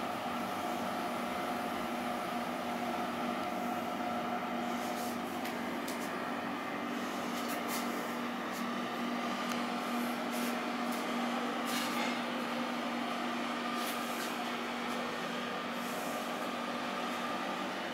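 Steady mechanical hum holding several even tones over a soft hiss, with a scatter of faint clicks in the middle.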